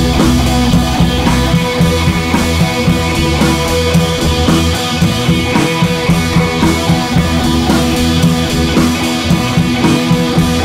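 Rock music with drums and electric guitar, loud and continuous.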